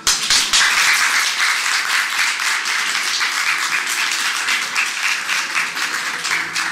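A roomful of people applauding: dense clapping that starts suddenly.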